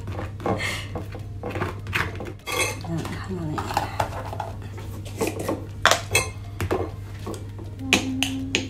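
A table knife scraping and clinking as it spreads butter on toasted crumpets on a plate, with scattered sharp knocks as tubs and jars are handled on the worktop. A steady low hum runs underneath.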